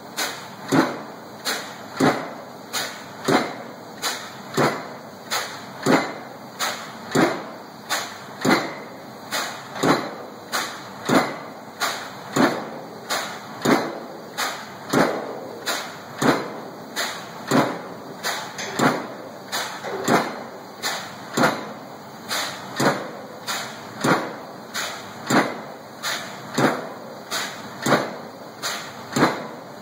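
Air hammer driving a fiberglass composite (FRP) fender pile: sharp blows about one and a half a second, steady and evenly spaced throughout.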